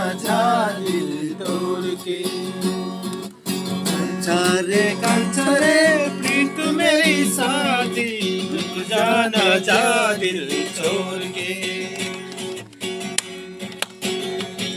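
Acoustic guitar playing with a voice singing a wavering melody over it.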